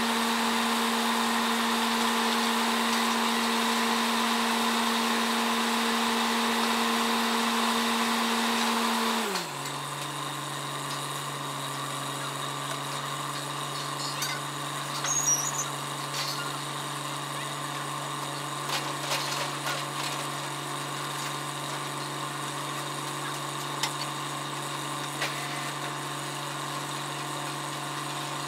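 Borewell drilling rig's engine running steadily at high revs, then throttled back about nine seconds in, its pitch sliding down and settling into a lower, quieter steady run. A few light knocks sound later on.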